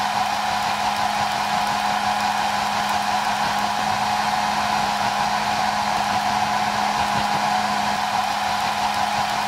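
Handheld hair dryer running steadily, a constant blowing hiss with a steady hum and a higher whine that do not change.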